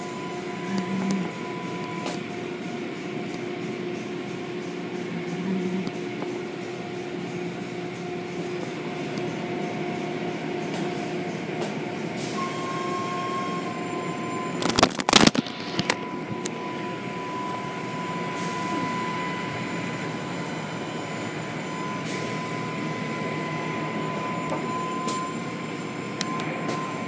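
Automatic tunnel car wash machinery running: hanging cloth curtain washers swishing over a car amid water spray and motor noise, with a steady high whine. A brief, loud blast of noise comes about halfway through.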